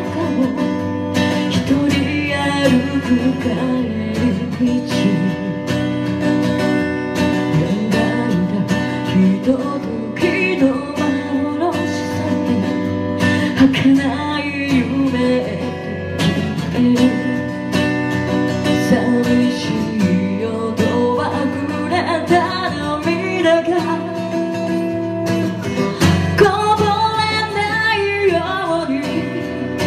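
Live acoustic duo: a woman singing into a microphone over a strummed steel-string acoustic guitar.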